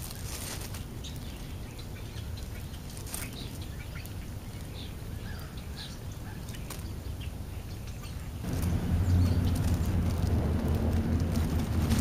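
Food and plastic bags being handled, with scattered clicks and a few faint bird chirps. About eight and a half seconds in, a louder, steady low vehicle-engine hum starts and keeps going.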